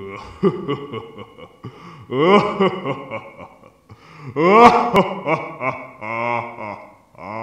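A person laughing in several drawn-out bursts, each rising and then falling in pitch, with a sharp click about five seconds in.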